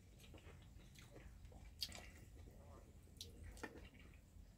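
Near silence: room tone with a few faint, short clicks.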